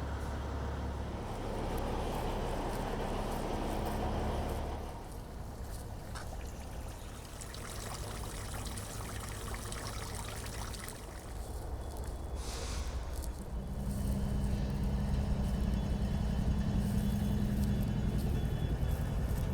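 Motor vehicle engines running on a wet city street: a steady low engine hum for the first few seconds that fades out, then a louder engine hum coming in about two-thirds of the way through, with water trickling in between.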